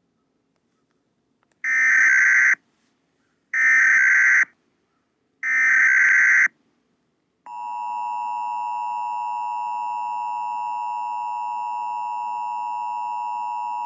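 Emergency Alert System tones: three loud one-second bursts of the SAME header data warble, about a second apart. About halfway through, the steady two-tone EAS attention signal starts and holds.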